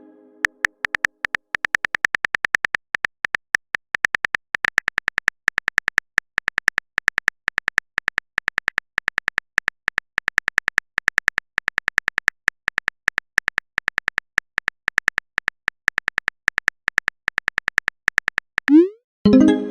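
Typing sound effect: a fast, irregular run of sharp key clicks, several a second, as a chat message is typed out.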